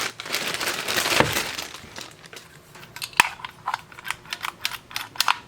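Wrapping crinkling and rustling for about two seconds as parts are dug out of a box, then a string of light clicks and knocks from hard parts being handled, with one sharper knock a little after three seconds in.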